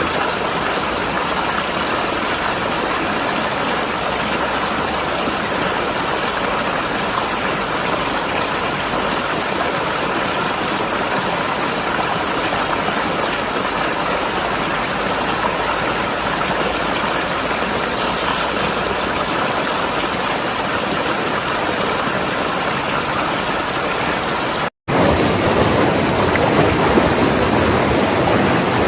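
Mountain river flowing and gurgling over rocks, a steady rush of water. About 25 seconds in it cuts out for an instant and resumes slightly louder and fuller, as another stretch of the recording.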